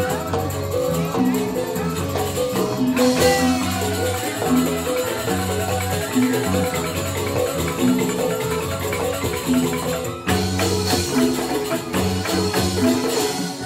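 Joged bumbung gamelan music: bamboo xylophones (grantang) playing fast, repeating interlocking patterns over low bass notes, with a brief break about ten seconds in.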